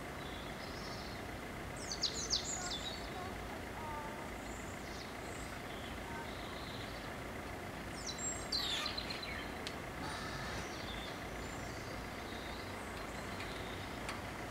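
Small birds chirping in quick high clusters, once about two seconds in and again past eight seconds, over a steady outdoor background hum.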